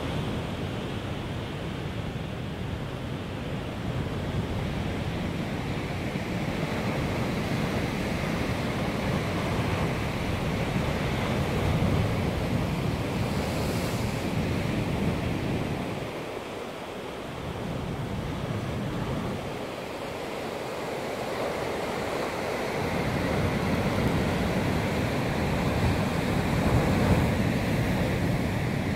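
Sea surf breaking and washing against the foot of limestone cliffs, a continuous rushing that swells and eases, with a lull a little past halfway.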